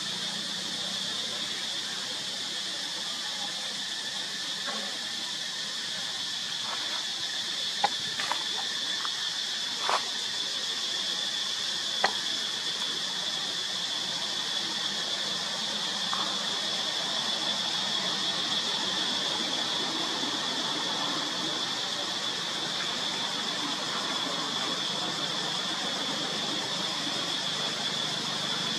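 Steady high-pitched insect drone in the forest, with a few short sharp clicks or snaps between about eight and twelve seconds in.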